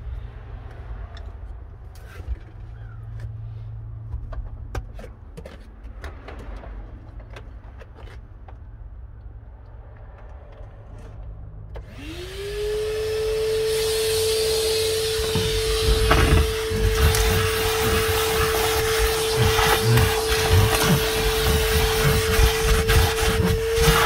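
DeWalt 9-gallon 5 hp wet/dry shop vacuum: after faint clicks and handling, it is switched on about halfway through and its motor spins up to a steady high whine with loud rushing air. Irregular knocks and rattles follow as the nozzle picks up debris.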